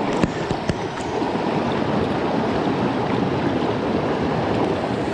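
Shallow mountain brook running over rocks: a steady rush of water. Two sharp clicks sound in the first second.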